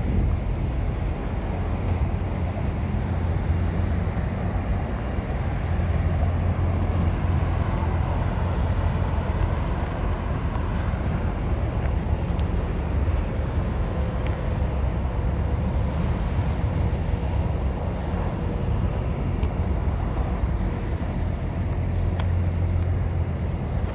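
Steady low rumble of road traffic and vehicle engines.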